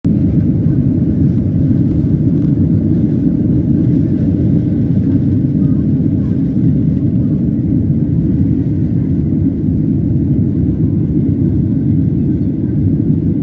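Steady low roar of an airliner's jet engines during takeoff, even in level and without a rising whine.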